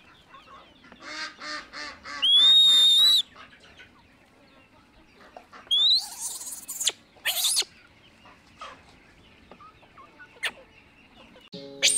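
A chicken clucking in a quick run, then a baby monkey's high-pitched squeals: one long steady squeal a couple of seconds in, the loudest sound, and shorter rising squeals around six to seven and a half seconds in.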